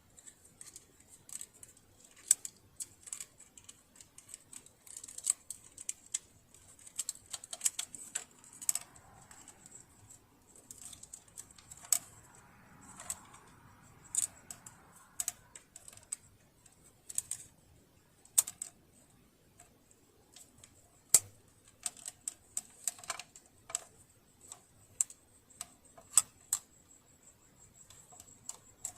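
Irregular small clicks and taps of hand tools and metal parts being handled while a sewing machine is taken apart and oiled, some sharp, with short pauses between bursts.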